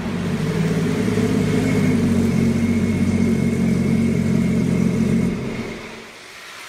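Small jet boat's engine running steadily at speed, then dropping away about five seconds in as the boat comes to a stop.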